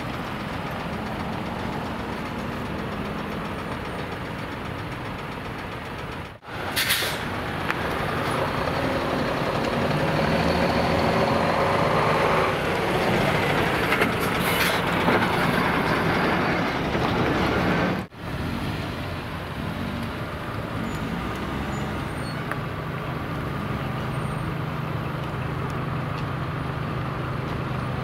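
Heavy trucks' diesel engines running at low speed as they pull away, with two short air-brake hisses, about seven seconds and fifteen seconds in.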